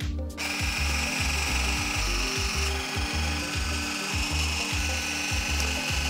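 A 7.2-volt cordless drill driving screws into a scooter wheel rim, its motor whining steadily from about half a second in. Background music with a steady beat plays underneath.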